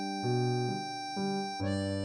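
Instrumental background music: sustained pitched notes with the lower notes changing about every half second.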